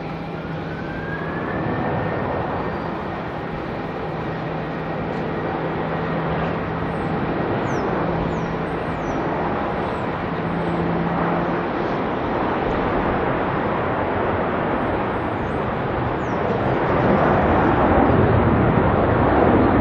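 Jet airliner engines over a steady rush of wind and traffic noise, with a whine rising in pitch over the first two seconds; the noise swells in the last few seconds.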